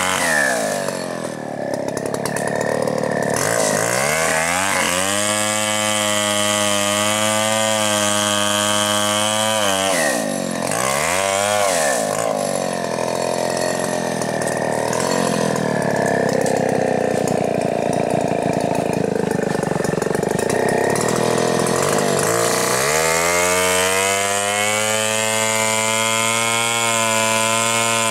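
Two-stroke chainsaw cutting into a tree trunk. The engine is revved up and held at high speed, let back down, runs lower and rougher for a long stretch, then is revved up and held high again.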